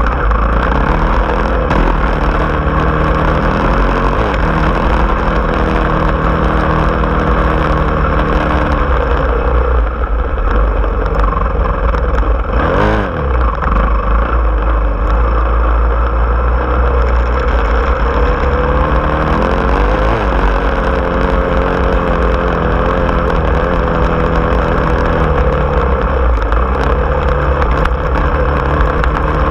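Engine of an off-road vehicle running steadily under way. Its pitch dips and climbs back up twice, about 13 and about 20 seconds in.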